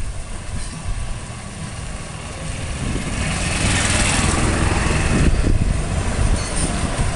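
A motor engine drone with a rushing hiss that grows louder about three seconds in and stays up.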